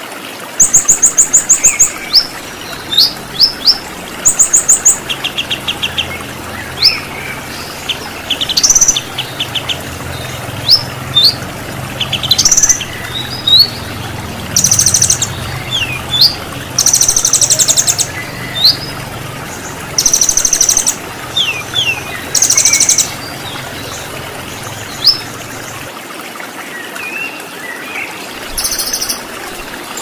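A mix of recorded songbird calls, with short rising whistles, quick chips and fast buzzy high trills coming in bursts, over a steady rush of running water.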